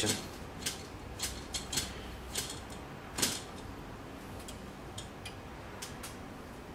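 Bowstring serving tool being passed by hand around a recurve bowstring on a jig, winding on serving thread: light, irregular clicks and ticks, with a louder click about three seconds in and fewer clicks near the end.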